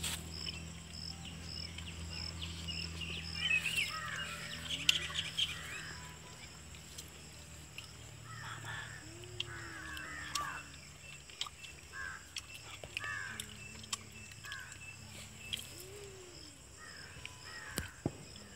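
Crows cawing, a series of short harsh calls in the second half, over a faint steady high-pitched insect trill.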